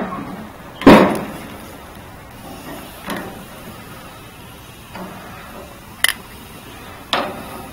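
Loud metal clank of a Char-Broil gas grill's stainless steel lid about a second in, ringing briefly. It is followed by a few softer clicks and knocks of metal tongs against the grill grates as the steaks are turned.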